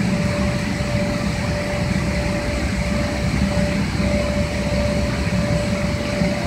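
Mechanical bull ride machinery running: a steady low drone with a constant hum, from the bull's drive and the air blower that keeps its inflatable arena up. The hum drops out briefly about two-thirds of the way through.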